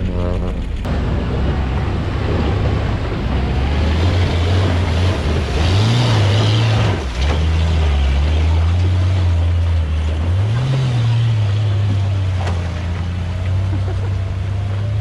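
Vehicle engine running under load and revving up twice, about six seconds in and again about ten seconds in, over a steady rushing noise.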